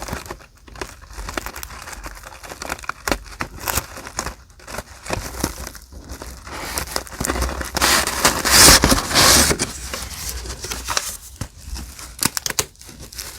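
Paper being handled for journal decorating, crinkling and rustling with many small sharp crackles. There is a louder stretch of rustling about two-thirds of the way through.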